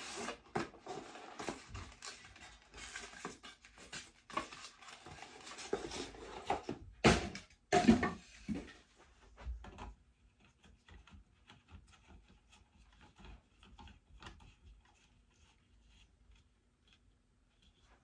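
Cardboard box and packaging rustling and crinkling as a light bulb is unpacked, with two loud knocks about seven and eight seconds in. After that, only faint small clicks and scrapes as the bulb is fitted into the light.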